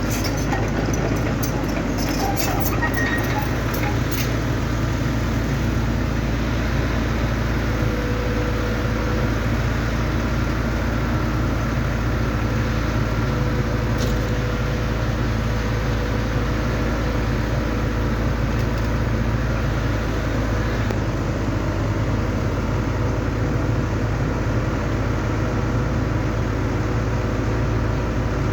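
Excavator's diesel engine running steadily with a low, even drone, with a few sharp clicks in the first few seconds.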